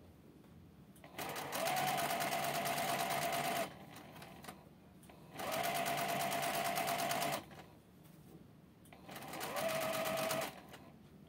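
Electric sewing machine stitching a seam in thin silk kimono fabric in three runs of about two seconds each, with short pauses between. Each run speeds up briefly to a steady whine.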